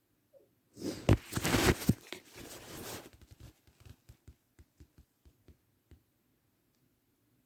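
A burst of rustling, tearing-like noise for about two seconds, then a string of light clicks and taps that slow down and die away.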